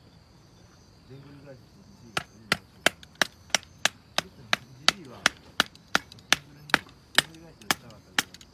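A steady run of sharp knocks on wood, about three a second, beginning about two seconds in.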